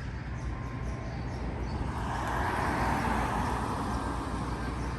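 Steady low rumble of road traffic, with a vehicle passing about two seconds in, its noise swelling and then easing off.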